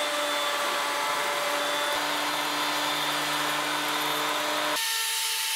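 Table-mounted router running at speed, its flush-trim pattern bit cutting a maple board fed along it: a steady whine with cutting noise. The sound changes abruptly near the end.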